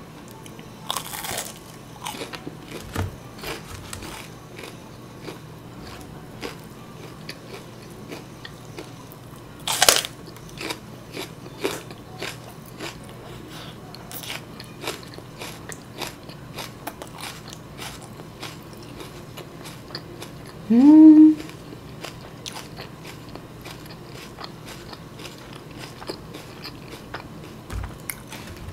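Close-miked biting, crunching and chewing of crispy-coated Salsal fried chicken and raw green onion, with many small crisp crackles and one sharp crunch about ten seconds in. About 21 seconds in, a short rising hum from the eater is the loudest sound.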